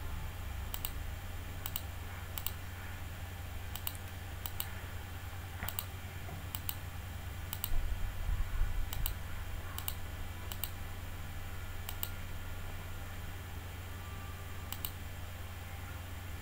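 Computer mouse button clicking: about fifteen short, sharp clicks at uneven intervals, each one setting a point of a line being digitized on a map. A steady low hum runs underneath, with a few low bumps about eight seconds in.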